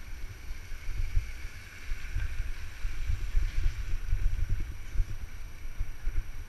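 Wind buffeting the microphone of a bike-mounted GoPro as the bike rolls along, with a steady hiss from tyres running on the rain-soaked pavement.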